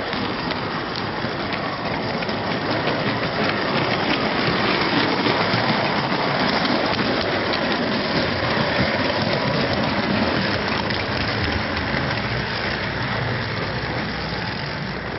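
O gauge model train running on its track, heard from a wagon in the train: a steady rolling rattle of wheels on rail with light ticks, louder in the middle.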